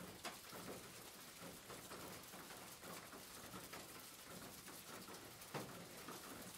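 Faint steady rain patter heard from inside a car, with a few louder single drops tapping on the windscreen or roof.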